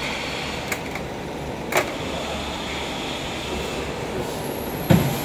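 Automatic can seamer machinery giving a steady mechanical hum, with two light metallic clicks and a heavy metal knock near the end.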